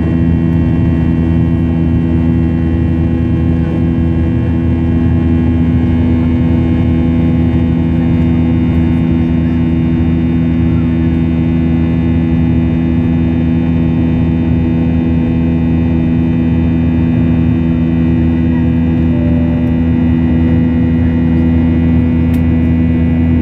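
Steady drone of a jet airliner's engines heard inside the passenger cabin during the climb after take-off, made of several steady low hums with a fainter whine above them.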